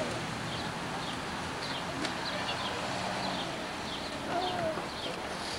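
Small birds chirping, short high falling notes about twice a second, over a steady background hiss.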